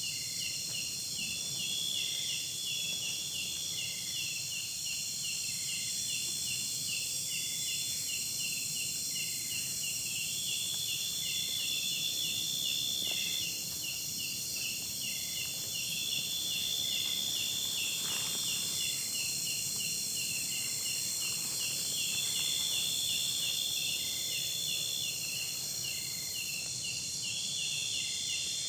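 Chorus of insects: a fast pulsing trill with a higher buzzing call that lasts about two seconds and comes back every few seconds, short regular chirps, and a steady high hiss.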